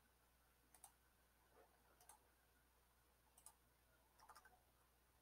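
Near silence with a few faint, widely spaced computer keyboard key clicks.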